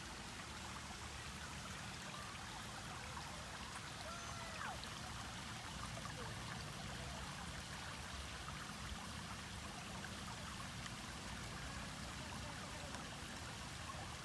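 Running water of a stream, a steady rushing hiss, with a brief faint whistle about four seconds in.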